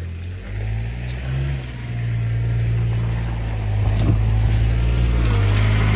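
Tractor engine running steadily, growing louder about two seconds in.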